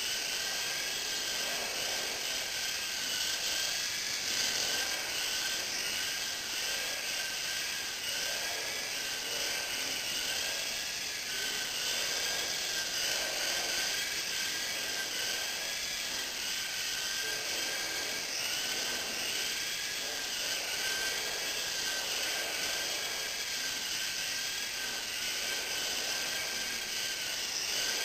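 A small RC helicopter in flight: the high, steady whine of its motor and the buzz of its spinning rotor. The pitch wavers up and down every second or so as the throttle is worked to hold it in a hover.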